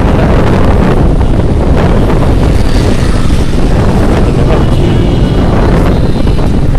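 Steady wind rush over the microphone from riding a TVS Apache 160 motorcycle at road speed, with its single-cylinder engine running underneath.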